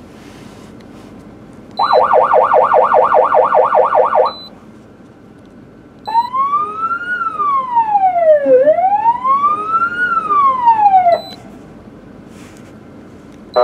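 Sho-Me electronic siren through its Sho-Me speaker, first in yelp mode: a fast warble of about five sweeps a second for some two and a half seconds. About six seconds in it switches to wail, a slow tone rising and falling twice over five seconds. A short high beep marks each start and stop.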